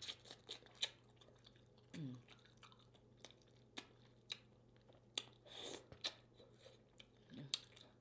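Faint close-up chewing of saucy rotisserie chicken: scattered wet smacks and mouth clicks, with two brief low mouth sounds about two seconds in and near the end.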